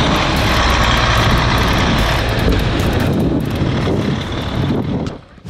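Semi truck's diesel engine running as the tractor-trailer drives through deep snow, a steady low drone that fades about halfway through as the truck moves off, and cuts off just before the end.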